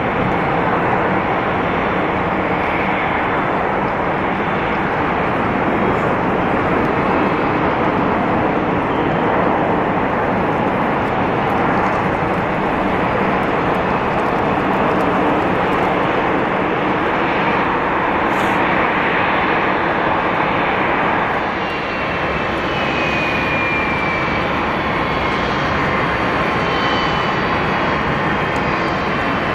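Jet airliner engines running with a steady rushing noise. About two-thirds of the way through, a thin engine whine comes in and slowly falls in pitch.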